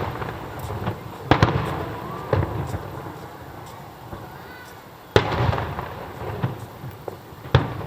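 Aerial firework shells bursting: a string of loud, sharp bangs a second or more apart, each followed by a rolling echo.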